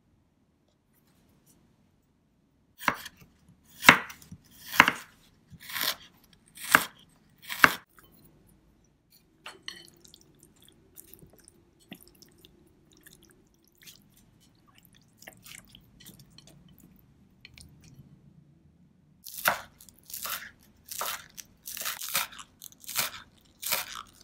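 A kitchen knife cutting on a bamboo cutting board: six loud, separate strokes about a second apart, fitting ginger being sliced. Next comes a quieter stretch of soft wet squishing and small clicks as raw chicken wings are mixed with ginger in a glass bowl using chopsticks. Near the end there is a quicker run of knife chops on the board as spring onions are sliced.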